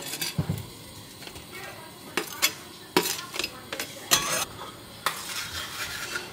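A chef's knife scraping and tapping chopped green onion off a glass cutting board into a saucepan, with several sharp clinks and scrapes. Near the end comes a soft frying sizzle as the onion is stirred in the hot pan.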